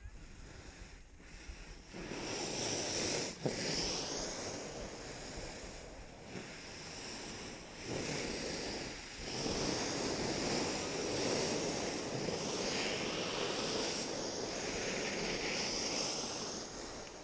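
Skis sliding and turning on groomed snow, with wind rushing over the skier's microphone; the rushing noise grows louder about two seconds in and swells and dips with the run.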